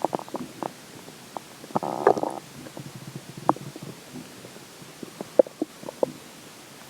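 Human stomach gurgling with water in it: a run of short pops and squelchy gurgles, with one longer bubbly gurgle about two seconds in.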